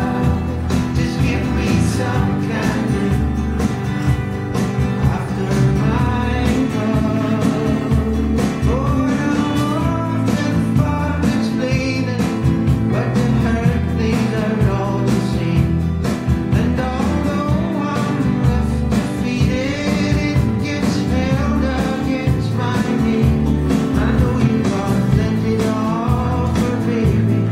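A song with a sung vocal over a band with a steady beat, playing loudly throughout.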